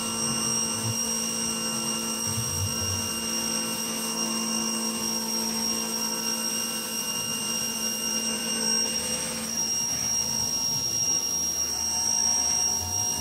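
Ryobi electric pressure washer running with a steady whine while its spray hisses against a concrete sidewalk.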